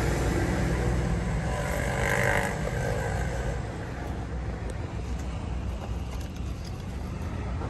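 Steady low engine rumble, as of road traffic, louder during the first three seconds and then easing off.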